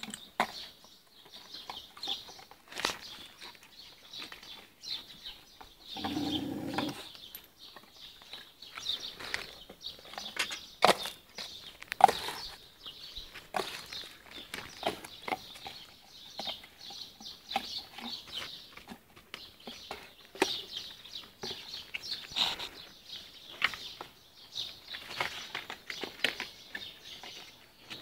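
Stray puppies eating food off the ground: irregular crunching and smacking clicks of chewing with light rustling, and a louder low sound lasting about a second around six seconds in.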